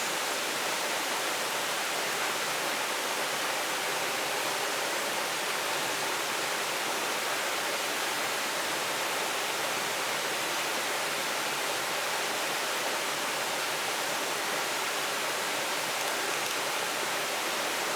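Steady rushing of flowing river water, an even hiss that never breaks.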